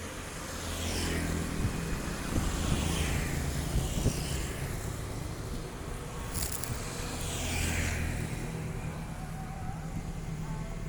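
Road vehicles passing close by one after another, three passes each falling in pitch as it goes by, over a steady low engine hum.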